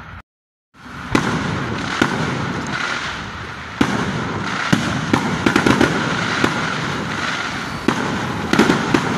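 Fireworks going off: a continuous crackling din broken by sharp bangs every second or so, coming in quick clusters around the middle and again near the end, after the audio drops out for half a second at the very start.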